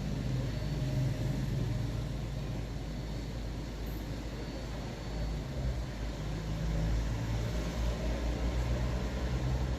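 Mini Cooper R56 engine idling, a steady low hum with a pulsing rumble that grows stronger about halfway through.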